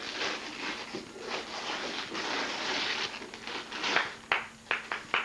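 Gift wrapping paper rustling and tearing as a present is unwrapped, with several short sharp rips near the end.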